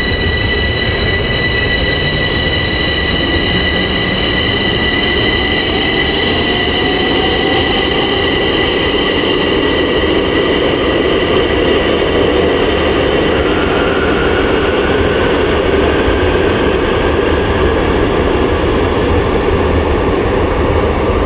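Bombardier metro train pulling out of the station. A high steady whine from the standing train gives way to its traction motors whining upward in pitch as it accelerates, over the rumble of its wheels on the rails.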